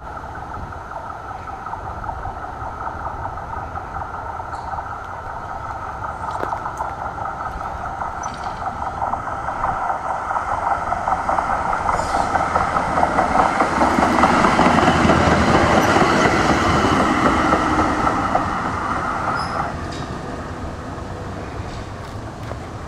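Melbourne Z-class tram running on ballasted track, its wheel and motor noise growing steadily louder as it approaches and passes close by, then dropping away sharply near the end.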